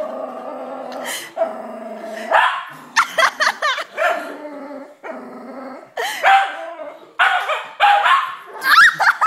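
Puppy barking and yipping in short bursts while it is teased, starting with a drawn-out growl about two seconds long.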